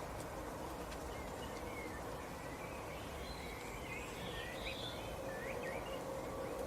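Small birds chirping in short, quick calls over steady low background noise, the calls coming thickest in the second half.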